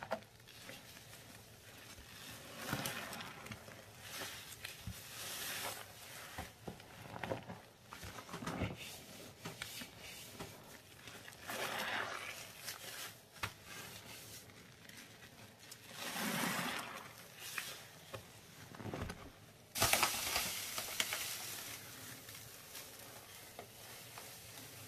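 Gloved hands squeezing and squishing sponges soaked in wet, bubbly paste: a string of separate wet squelches. About four-fifths of the way through, powder starts pouring in a steady hiss that is louder than the squelches.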